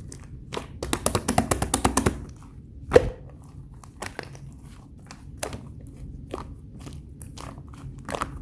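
Thick, fudgy brownie-style slime being squeezed and poked by hand, making sticky clicks: a quick dense run of crackly clicks about a second in, one loud click near three seconds, then scattered small clicks.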